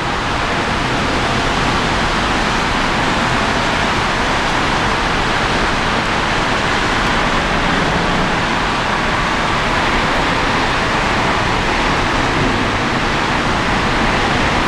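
Airbus A380-841's four Rolls-Royce Trent 970 engines on final approach, heard as a steady rushing noise that neither rises nor falls.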